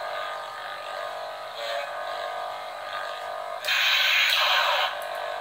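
Lightsaber sound card playing through the small speaker in the hilt: a steady electric buzzing hum, with a louder saber effect sound for about a second near the end.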